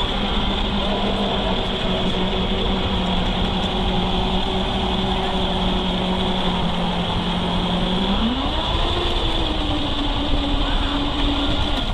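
Radio-controlled scale truck driving, with a steady pitched drive hum that rises in pitch a little after eight seconds in, over constant rumbling rolling and wind noise at the camera.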